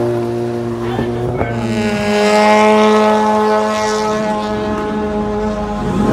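Car engine running at high, steady revs; the pitch steps up about a second and a half in and holds, then drops near the end.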